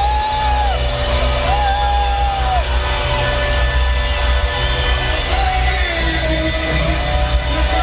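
Live rock band playing over a stadium sound system, heard from the stands, with long held lead notes that bend in pitch.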